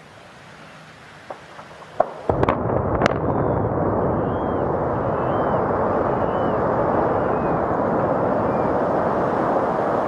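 Controlled explosive demolition of a power station's main buildings, heard from across the water. A few small pops are followed, about two seconds in, by four sharp blasts within a second, and then a long steady rumble as the structures collapse.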